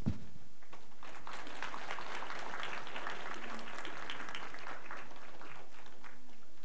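Audience clapping, building about half a second in and thinning out toward the end, after a brief low thump at the very start.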